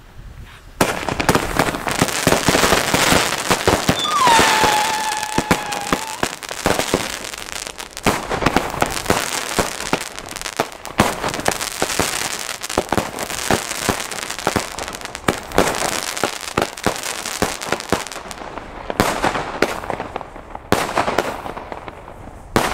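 A linked compound of firework batteries firing continuously: dense, rapid shots and crackling bursts start about a second in and go on for nearly twenty seconds. A short falling whistle comes about four seconds in. Near the end it thins to a few last separate shots.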